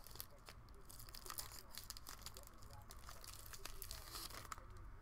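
Faint crinkling and tearing of a trading-card pack's foil wrapper being opened, with scattered small crackles and clicks as the packaging and cards are handled.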